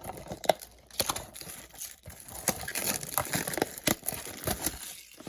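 Plastic wrapping crinkling and tearing in quick irregular crackles as a trading-card blaster box is unwrapped.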